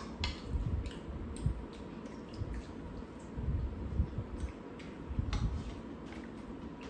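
Quiet eating sounds: chewing and soft wet mouth noises, with a few light clicks of utensils against ceramic bowls.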